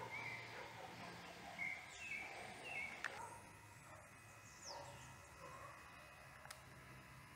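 Faint outdoor ambience with a few short, high bird chirps in the first three seconds.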